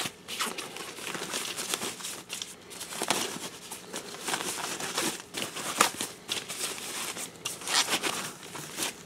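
Thin plastic bag crinkling and rustling on and off as a metal microscope mount is unwrapped from it.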